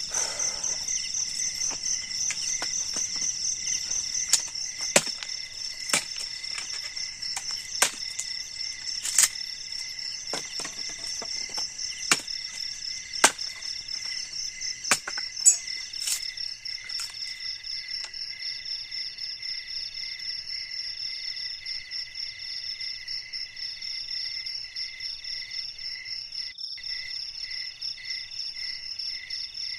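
Night chorus of crickets and other insects trilling in several steady high pulsing tones. Over it, for the first half, come about a dozen sharp separate knocks of a blade striking a bamboo pole; these stop a little past the middle.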